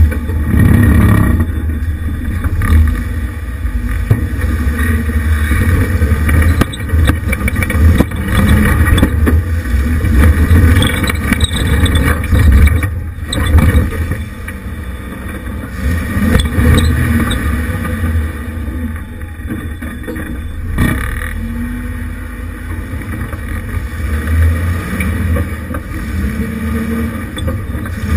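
1988 Jeep Wrangler YJ crawling up a rocky trail, its engine running low under load with the level rising and falling, and a couple of sharp knocks as it goes over rock.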